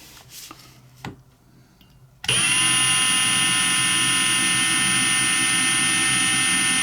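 Small high-speed electric drill starts up about two seconds in and runs at a steady speed with a high whine, fitted with a fine 1.2 mm bit. A single click comes just before it starts.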